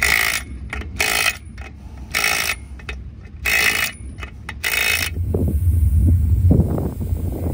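A series of short, loud, noisy bursts at uneven spacing; then from about five seconds in the low rumble of a dirt-track race car's engine running, with a few brief revs.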